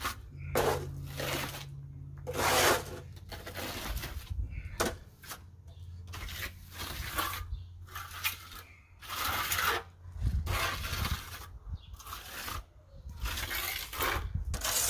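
A steel hand trowel scraping mortar stucco mix off a hawk and spreading it onto wire lath on a wall, in about a dozen short scraping strokes with brief pauses between them.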